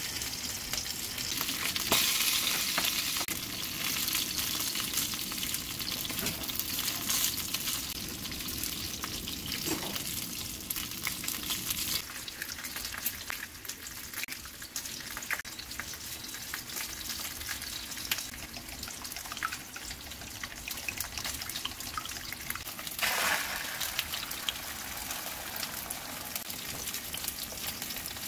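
Kitchen cooking sounds over a steady frying hiss: kitchen scissors snipping porous tofu over a bowl, then eggs cracked into a bowl. In the last few seconds comes a louder burst of sizzling, as egg cooks in a hot frying pan.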